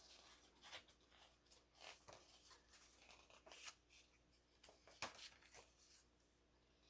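Faint rustling and light clicks of paper and card being handled as an accordion-fold album booklet is unfolded, with one sharper tick about five seconds in.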